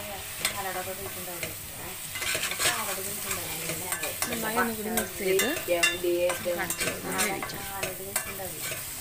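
A spatula stirring and scraping masala-coated mushrooms around a stainless steel kadai in repeated irregular strokes, over the sizzle of the frying food.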